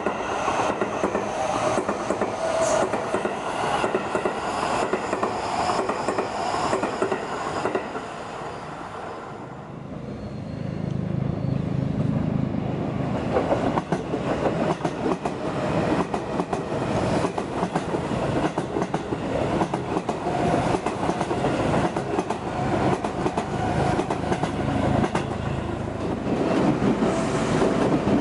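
Seibu electric commuter trains passing at speed, steel wheels clattering over the rail joints. The sound drops away for a moment about nine seconds in, then builds again as another train runs past.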